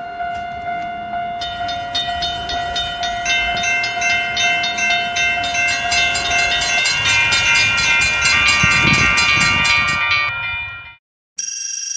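Cartoon train sound effects: several held horn-like tones stacking up over a fast, even clatter, with a low rumble growing near the end. Everything cuts off abruptly about eleven seconds in, and a short bright chime begins just after.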